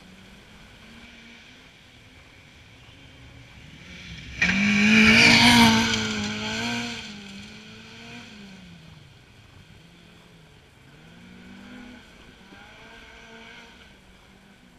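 Rally car on a gravel forest stage. Its engine is heard at a distance with the revs rising and falling, then it comes in suddenly loud about four seconds in, with a rush of tyre and gravel noise. It fades over the next few seconds, and the engine rises faintly again near the end.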